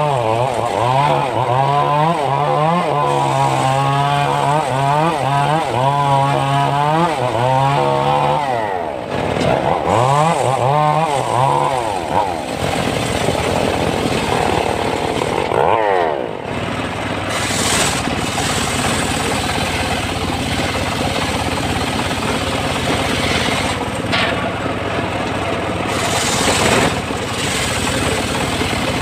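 Homemade engine-driven circular sawmill ripping a log lengthwise, its pitch wavering up and down as the blade loads in the cut. After about twelve seconds it settles into a steadier run.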